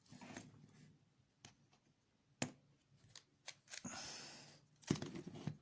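Scattered light clicks and knocks of small RC car parts and tools being handled during assembly, with a short scraping rustle about four seconds in and a sharper knock near the end.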